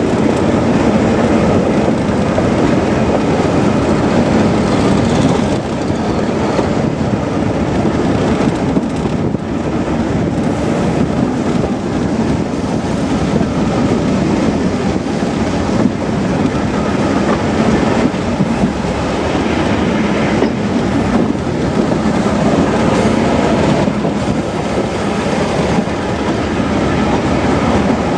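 Class 207 'Thumper' diesel-electric multiple unit running along the line: its English Electric diesel engine drones steadily under the rumble of the wheels, with wheel clicks over the rail joints.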